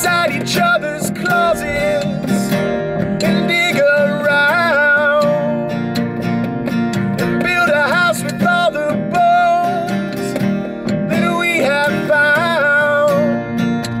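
Acoustic guitar strummed with a man singing the melody over it, a live acoustic band performance in the close, dry space of a car's cabin.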